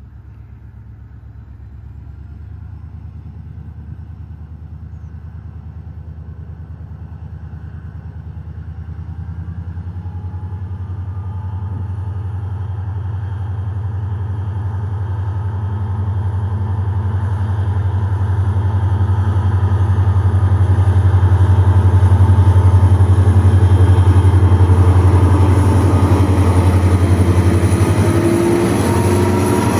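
EMD 16-710 two-stroke V16 diesel of a WDG4 locomotive humming as the locomotive approaches, growing steadily louder to a peak a little over twenty seconds in and easing slightly after. A thin high whine strengthens in the last few seconds.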